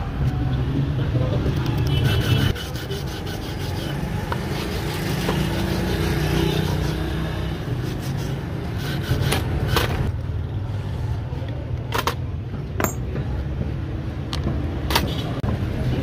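Hand tools scraping and tapping on a rusty antique padlock: scraping and rubbing in the first half, then about five sharp clicks in the second half, over a steady low rumble.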